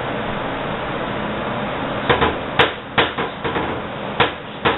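A run of about six sharp knocks over two and a half seconds, starting about two seconds in, over a steady background hiss.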